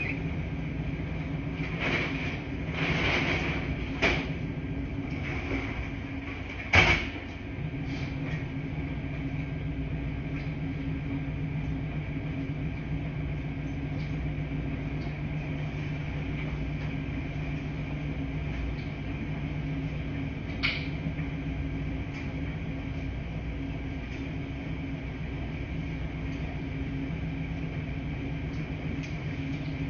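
Steady low hum of laundry machines running, with a few clicks, a brief swish and knocks, the loudest knock about seven seconds in.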